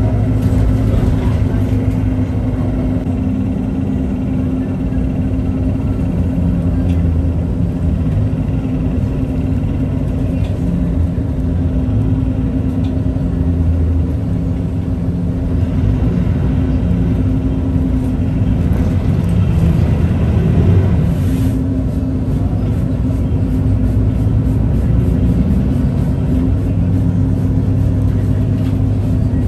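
Steady low rumble of a city bus's engine and road noise heard from inside the moving bus, with a constant drone underneath.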